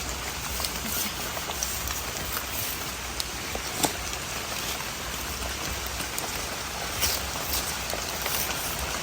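Steady rain falling, with scattered individual drops tapping close by.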